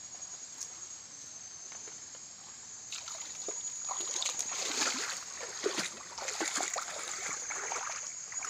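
Shallow creek water splashing and sloshing as someone wades through it, busier and louder from about three seconds in, over a steady high-pitched drone.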